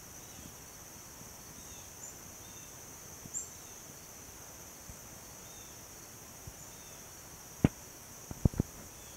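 Steady high-pitched insect chorus with a few faint short chirps over it. A sharp knock comes about seven and a half seconds in, followed a second later by a quick cluster of three louder clicks.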